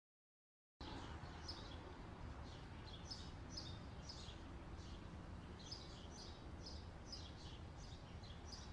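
Faint outdoor ambience that cuts in abruptly about a second in: small birds chirping in short repeated calls, several a second, over a low steady rumble.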